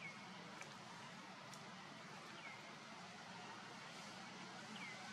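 Faint outdoor background hiss with a low steady hum, broken by three short, high chirps that fall in pitch, about two and a half seconds apart.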